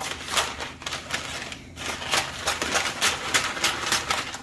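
Scissors cutting through butcher paper: a quick, irregular series of sharp snips, with the stiff paper crackling as it is cut.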